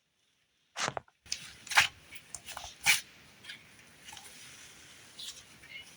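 Cloud cream snow butter slime being squished and poked close to the microphone, giving a run of sharp wet pops and squelches. The loudest come about a second in, just under two seconds in and about three seconds in, with softer ones after.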